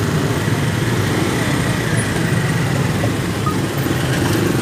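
Close-range road traffic: scooter and motorcycle engines and cars running steadily as a queue of vehicles moves off over a railway level crossing once the barrier is up.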